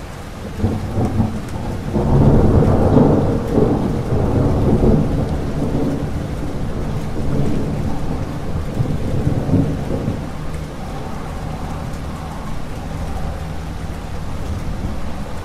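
Thunderstorm: a long roll of thunder builds about half a second in, is loudest between two and five seconds in, then rumbles away slowly, over steady falling rain.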